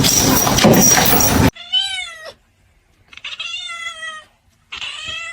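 A loud, noisy sound for the first second and a half, then a cat meowing three times, each meow a drawn-out call that rises and falls in pitch.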